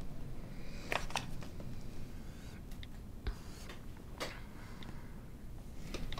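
A few light clicks and soft rustles of a paper notebook and pen being handled at a desk, over quiet room tone.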